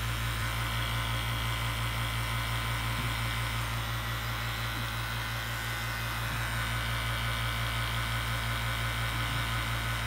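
CPS VPC2SU 2 CFM single-stage 115-volt HVAC vacuum pump running with a steady, even hum, pulling vacuum on a hose that is holding at about 350 microns instead of reaching 200.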